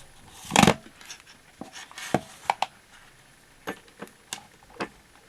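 Handling noise at a workbench: one loud bump about half a second in, then a scattered series of short clicks and light knocks as test gear is moved about.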